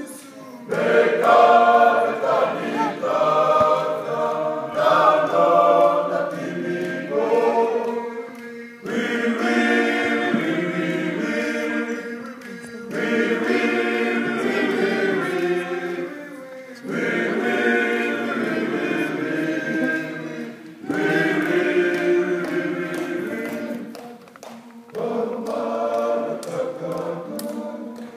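Group of men singing a cappella in several-part harmony, in phrases of about four seconds with brief breaks between them.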